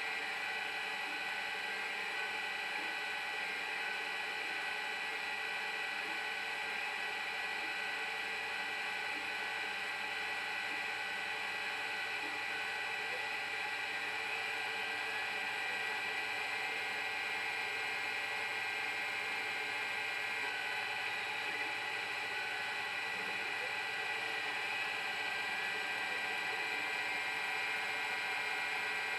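Metal lathe running with its chuck spinning while the stepper motors of a bolt-on CNC table feed the tool through an automated turning pass: a steady mechanical whir with several high, steady whining tones.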